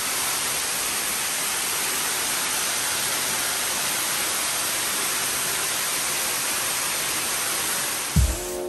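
Curtain of water from a man-made waterfall pouring down close by, a steady, even rush. A few sharp thumps from music cut in near the end.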